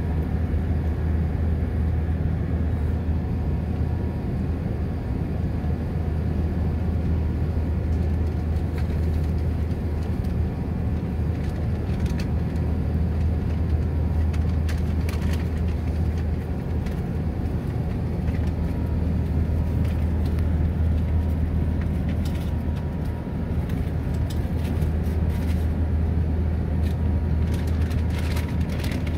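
Steady engine drone and rushing airflow of an Airbus A380-800 in its climb after takeoff, heard inside the passenger cabin. A constant low hum sits under an even rush of air.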